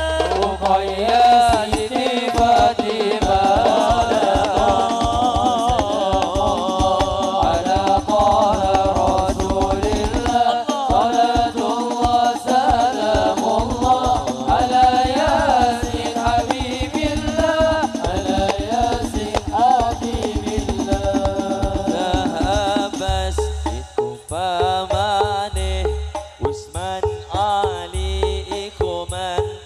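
Hadrah ensemble performing sholawat: male voices singing a melismatic Arabic devotional song over fast, dense hand-drum rhythm. About three-quarters of the way through the drumming thins to sparser, heavier low beats while a single singer carries the melody.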